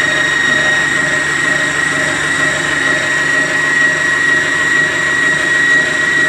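Kalorik 6-speed stand mixer running with its wire whisk spinning in the empty stainless steel bowl: a steady motor hum with a constant high whine.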